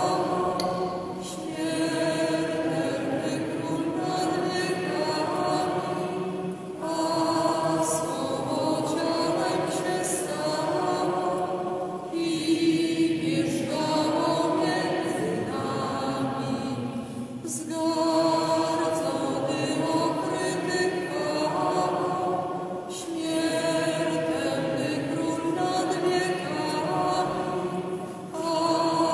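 Voices singing a church hymn together, in phrases of about five seconds each separated by short breaths.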